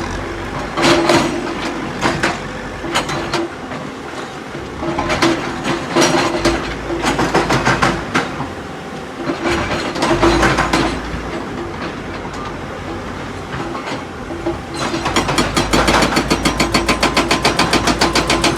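Tata Hitachi EX 210 LC excavator working with irregular clanks, knocks and scraping of rock over the running engine and hydraulics. About fifteen seconds in, its hydraulic rock breaker starts hammering in a fast, even pounding of about ten blows a second.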